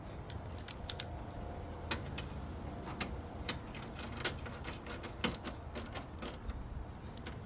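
Irregular metallic clicks and clinks of a hand socket wrench working a small bolt, a few a second at most, unevenly spaced, over a steady low rumble.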